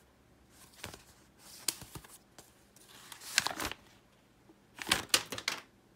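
Paper instruction leaflet rustling and crinkling as it is handled and unfolded, in several short bursts with sharp crackles, the loudest near the end.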